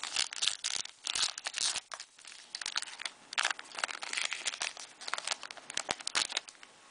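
Foil wrapper of a 2010 Panini Prestige football card pack being torn open and crinkled as the cards are slid out: a run of irregular crackling rustles that stops shortly before the end.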